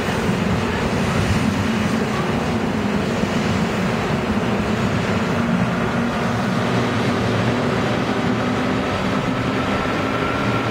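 Korail KTX-1 high-speed train cars running past a station platform: a steady, continuous noise of wheels on rail.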